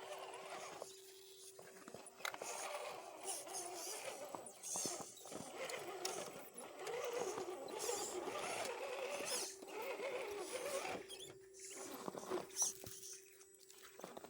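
RC rock crawler's brushed electric motor whining as it crawls, its pitch wavering up and down with the throttle, over a steady hum, with scattered clicks and crunches from the tyres and chassis on rock.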